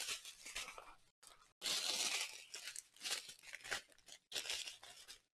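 Small plastic bags of diamond painting drills crinkling as a strand of them is handled, in several rustling bursts, the loudest about two seconds in.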